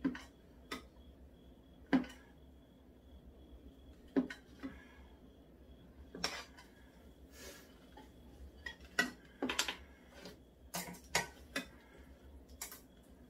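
Chopsticks and a serving spoon clinking against a metal pot and ceramic bowls as noodles are lifted and served: about a dozen short, sharp clinks at irregular intervals, a few of them coming in quick clusters near the middle.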